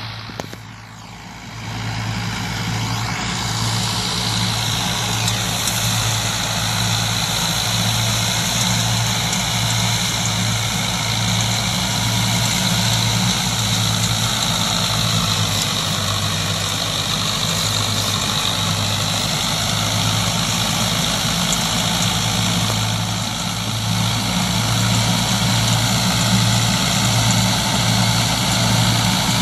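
Massey Ferguson 165 diesel tractor engine running steadily under load, driving a tractor-mounted wheat straw chopper that blows chopped straw into a trailer; the engine's low, even pulse is overlaid by the chopper's whirring and the rush of blown straw.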